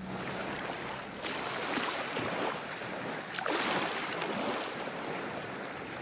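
Waves washing onto a shore: a rush of surf that swells and eases several times.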